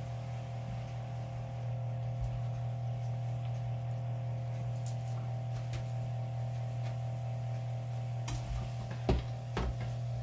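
Steady low electrical hum with a fainter higher tone over it. Near the end come a few light clicks and knocks of a metal spatula against the frying pan as the cooked sausage is stirred.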